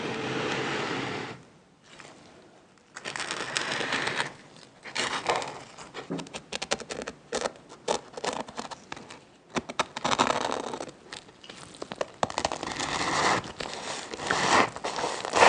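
Kitchen handling sounds during food preparation: intermittent scraping and rustling, with crinkling and many short clicks, coming in stretches of a second or two.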